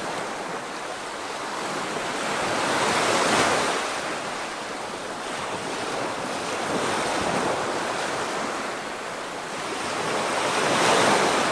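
Ocean surf washing onto a beach: an even hiss that swells and fades slowly, loudest about three seconds in and again near the end.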